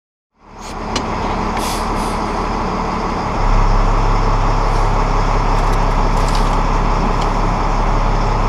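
Fire tanker truck's engine running, heard from inside the cab, with a steady low hum that gets louder and deeper about three and a half seconds in as the engine takes on more throttle. A few light clicks and rattles in the first two seconds.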